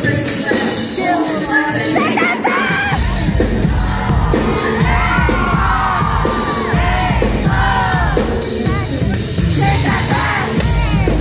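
Live pop concert music at full volume, with singing and an audience yelling and cheering. A heavy bass beat kicks in about three seconds in.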